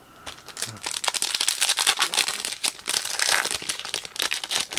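Foil trading-card pack crinkling and crackling as it is handled and opened, a dense run of crinkles lasting about four seconds.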